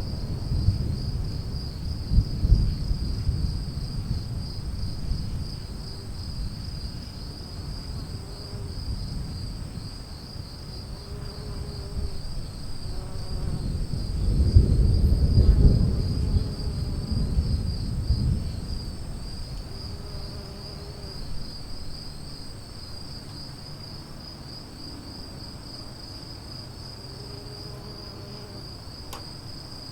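Insects chirring steadily in a high, pulsing drone over low rolling thunder, which swells to its loudest about halfway through and then fades away.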